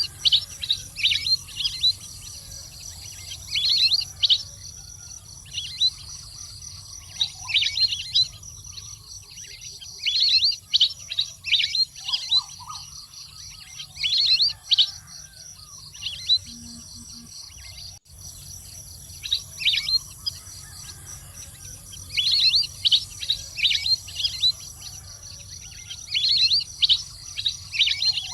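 Wild duck (waterfowl) calling: clusters of rapid, falling high whistles every couple of seconds, over a steady high insect drone.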